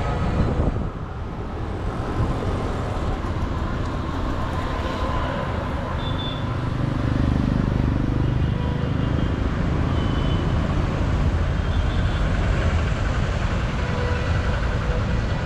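Road traffic noise: a steady low rumble of vehicles, with one vehicle's engine swelling louder about halfway through.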